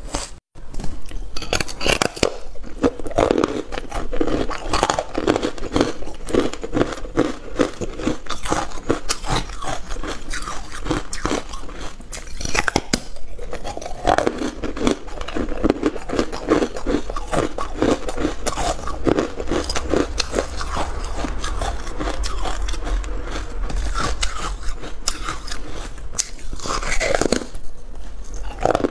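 Close-up biting and chewing of a porous pink carbonated ice block, a dense run of crisp crunches as pieces are bitten off and ground between the teeth. A brief gap just after the start.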